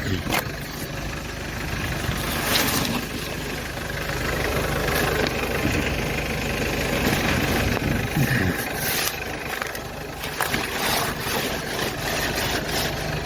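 Sprinter van engine idling steadily while it warms up after a thermostat replacement, with a few brief knocks and clatters over it.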